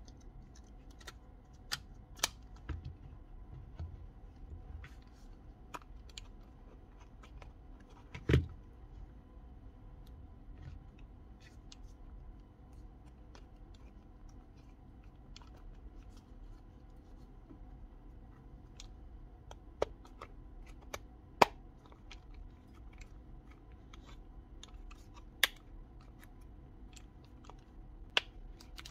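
Scattered clicks and taps of small drill parts and hand tools being handled on a workbench, over a faint steady hum. The loudest is a dull thump about eight seconds in, with a few sharper ticks later on.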